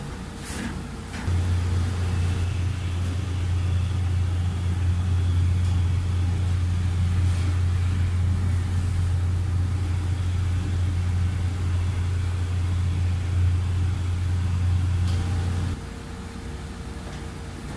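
A steady low machine hum starts about a second in and stops abruptly a couple of seconds before the end.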